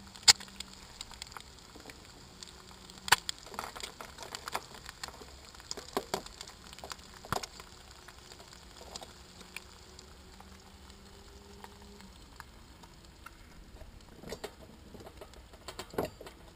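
Eggs frying quietly in an aluminium pan on a small camp stove, with scattered sharp clicks and metal knocks as the pan and a pan gripper are handled. A cluster of clatter near the end comes as the pan is lifted off the stove.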